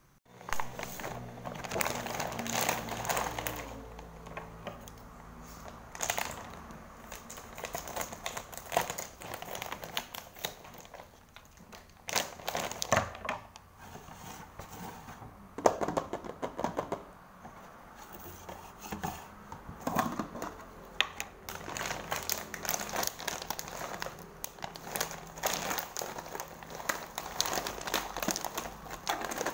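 Plastic snack bag of fried tapioca chips crinkling and rustling in irregular crackles as it is handled, then tipped to pour the chips into a plastic jar near the end.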